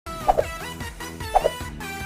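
Background music: held tones with a short two-note accent repeating about once a second.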